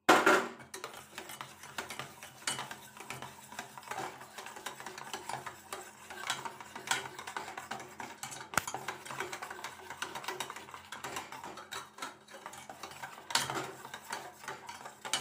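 Thick semolina cake batter being stirred in a steel bowl, the metal utensil scraping and clinking irregularly against the bowl's sides.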